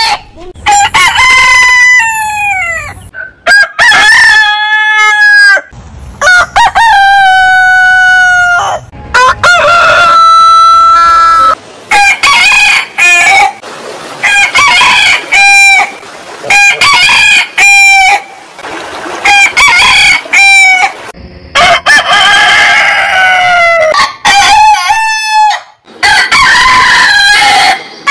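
Roosters crowing one after another, a string of loud crows from different birds; the early crows are long, drawn-out calls and the later ones are shorter and come closer together.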